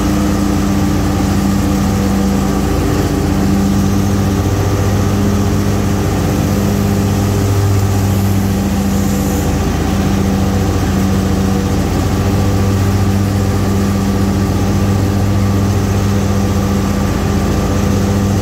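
Small gas engine of landscaping power equipment running loud and steady at a constant speed.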